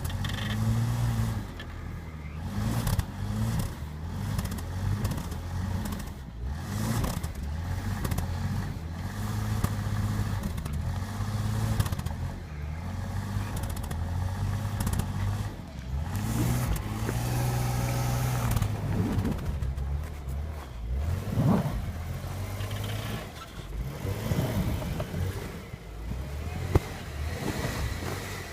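Jeep Wrangler engine revving up and falling back again and again as the vehicle works to drive out over rough ground, with scattered knocks and clatter from the vehicle.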